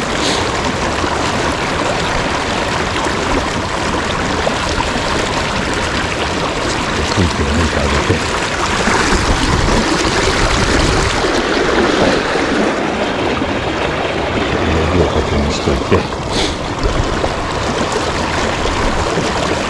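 River running high and fast after heavy rain, a steady, even rush of fast water.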